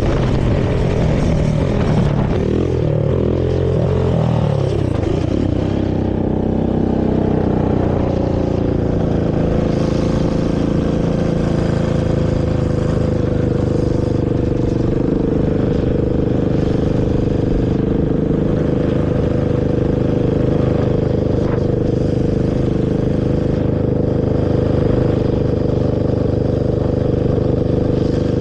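Honda TRX450R quad's single-cylinder four-stroke engine through its stock exhaust, revving up and down for the first few seconds, then running at a steady speed.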